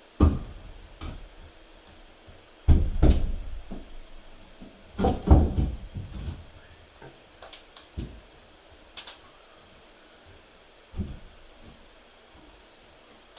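Irregular knocks and thumps from hand work on a wall, about eight separate hits with long gaps between them; the loudest come about three and five seconds in.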